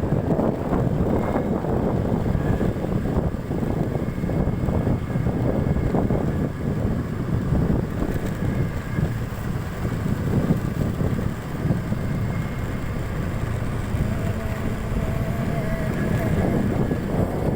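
Wind buffeting the microphone on a moving motorcycle, with the engine and tyres running underneath as a steady low rumble.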